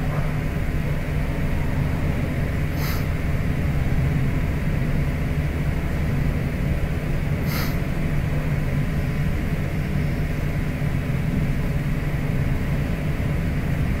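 Steady low hum with hiss, broken by two brief clicks about three and eight seconds in.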